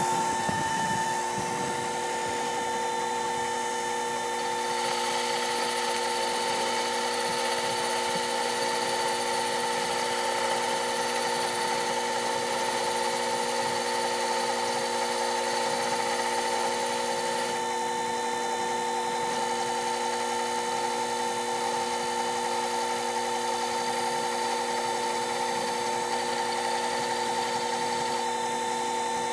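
Sherline mini lathe running with a steady whine from its motor and spindle while the tool turns down the outside diameter of an aluminum workpiece. A higher hiss joins in about five seconds in and drops away again about seventeen seconds in.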